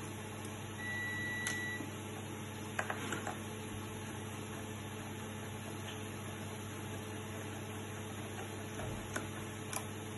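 A few light metallic clicks from a precision screwdriver working the case screws of a fibre fusion splicer, over a steady electrical hum. One steady high beep lasting about a second sounds about a second in.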